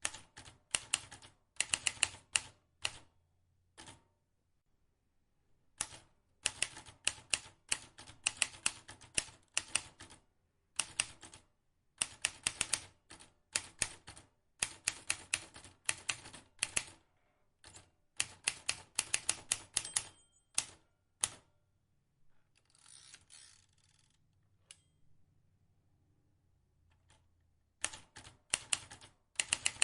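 Vintage typewriter typed in quick runs of sharp key clicks, with short pauses between runs. About two-thirds of the way through, the keys stop and a longer rushing sound of about a second and a half comes instead.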